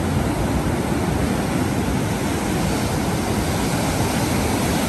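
Sea surf breaking and washing through the shallows, a steady rushing noise.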